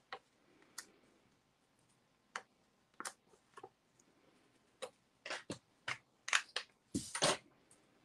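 Light clicks and crackles of paper handling, as small foam adhesive squares (mini dimensionals) are peeled off their backing sheet and pressed onto small cardstock pieces. The short sounds come scattered and thicken in the second half, with a longer crackle near the end.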